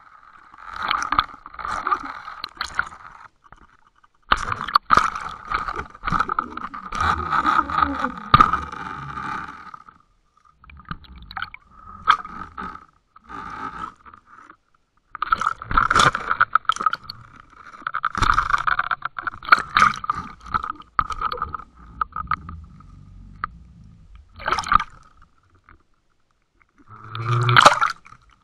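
Water rushing and scraping over an underwater line camera's housing in irregular surges as a hooked common carp drags it about, with a few sharp knocks and short lulls between the pulls.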